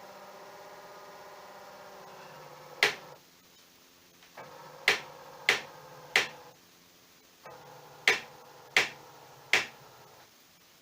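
Electric power trim and tilt pump motor of a 75 hp Chrysler outboard humming steadily in three short runs. Seven sharp clicks come from about three seconds in, several of them while the motor runs.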